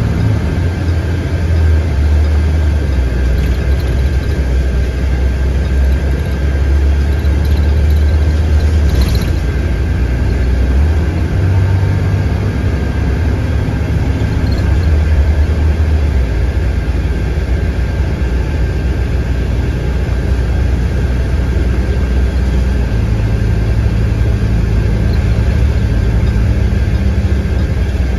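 Inside a moving 2017 IC CE school bus: the bus's engine and drivetrain drone low under road noise, with a thin steady high whine. The engine note shifts pitch a couple of times as the bus changes speed.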